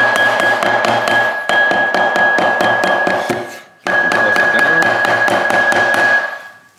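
Background music with a fast, steady beat and a held high note. It drops out briefly about four seconds in, then fades near the end.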